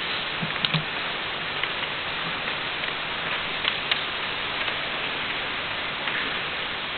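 Steady hiss of an old camcorder recording with the hall's room tone, broken by a few faint knocks and clicks about half a second in and again near four seconds.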